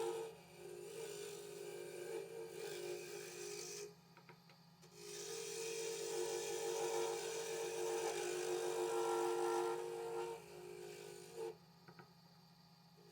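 Willow pen blank spinning on a wood lathe, with a steady rasping rub against the wood that breaks off briefly about four seconds in and again near the end, over a low steady hum.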